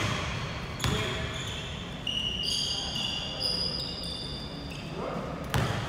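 Basketball bouncing on the court, three sharp thuds, with short high squeaks of sneakers on the floor in between.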